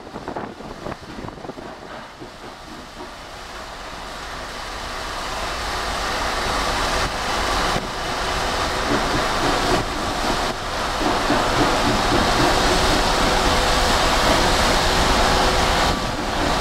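Gravel pouring from an open clamshell grab into a hopper: a steady rushing noise that grows louder over the first several seconds and then holds.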